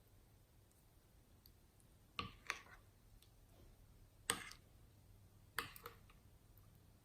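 A few short, sharp clicks over near silence: a pair about two seconds in, a single louder click past the middle, and another pair near the end.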